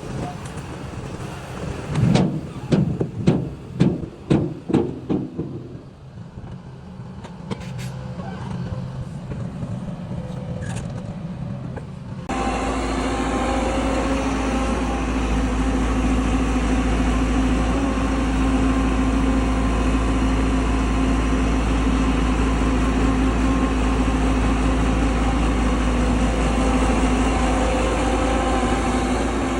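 Heavy construction-machine engine running, with a rapid run of about eight loud low thuds two to five seconds in. About twelve seconds in, the sound cuts abruptly to a louder, steady engine drone with a deep rumble.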